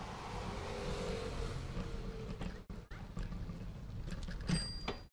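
A car driving past on the street, with a steady rush of tyre and road noise and a low engine hum. A short sharp clatter about four and a half seconds in.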